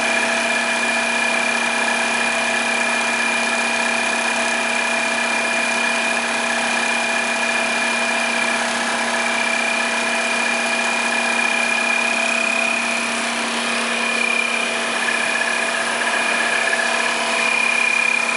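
YFM-302NCA high-speed zipper sewing machine, step-motor direct drive, running steadily on auto as it sews nylon coil teeth onto zipper tapes: an even mechanical whir with several steady whining tones held throughout.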